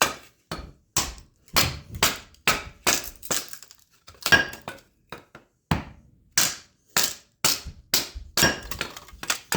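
Axe splitting dry oak into kindling: a quick run of sharp chopping strikes, about two a second.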